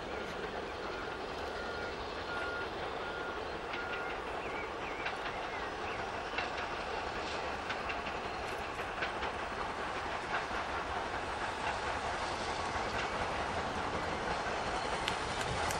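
BR Standard Class 4 2-6-0 steam locomotive 76079 hauling coaches toward the listener, its rumble growing slowly louder, with scattered sharp clicks from the wheels on the track.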